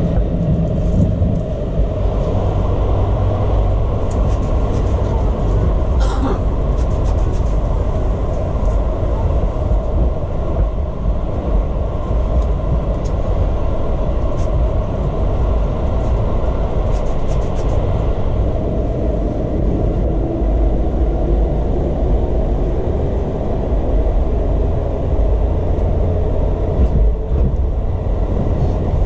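Running noise of a JR 651 series electric train at speed, heard from inside its Green car: a steady low rumble with a few faint clicks scattered through it.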